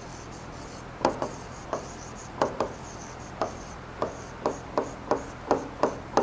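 A stylus tapping and sliding on the glass of an interactive touchscreen board during handwriting. Irregular short taps, two or three a second, start about a second in over a faint hiss.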